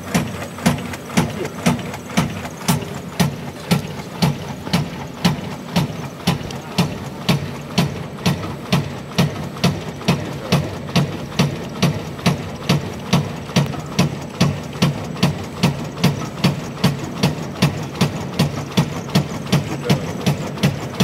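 Cigarette paper cutting machine running, its eccentric-arm flying shear cycling at a steady rate: a sharp clack about twice a second over a steady low machine hum.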